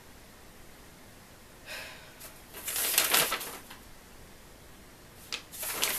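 Paper rustling as a sheet is handled, in short bursts about two, three and five and a half seconds in, the one at three seconds the loudest.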